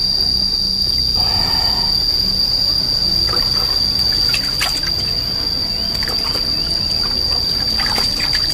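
Water splashing and trickling in a plastic basin as hands dunk and rub a snake, in short irregular splashes. A steady high insect trill, typical of a cricket, runs unbroken underneath and is the loudest thing.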